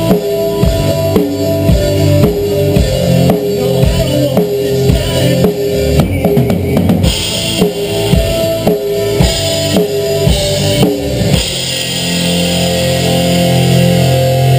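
Acoustic drum kit played over a country song recording, with kick, snare and cymbal hits. About eleven seconds in the drumming stops and the song's held chords ring on alone.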